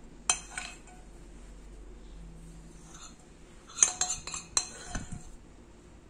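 Metal spoon clinking and scraping against a glass bowl while scooping out chocolate icing: two clinks near the start, then a quick run of several clinks a little past the middle.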